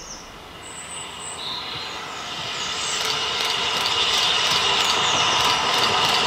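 Narrow-gauge steam locomotive James Spooner, a Double Fairlie, approaching and growing steadily louder. From about three seconds in there is a steady high squeal and regular beats about three a second. Birds chirp during the first few seconds.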